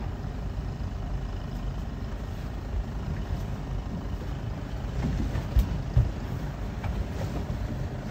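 Boat engine idling with a low, steady rumble, with two short thumps a little past halfway.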